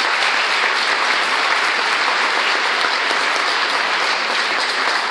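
A large audience applauding steadily, a dense, even clapping with no voices standing out.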